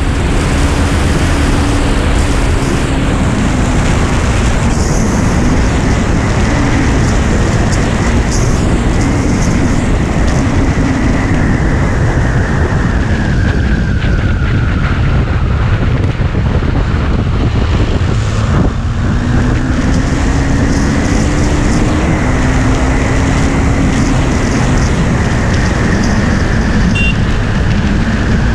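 KTM Duke 390's single-cylinder engine pulling at speed under heavy wind rush on the camera microphone. The engine note sags slowly, breaks off briefly about two-thirds of the way through, then climbs again.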